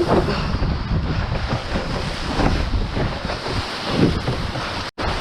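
Wind buffeting the microphone over the rush and splash of water along a fast-sailing International 14 skiff's hull. The sound cuts out for an instant near the end.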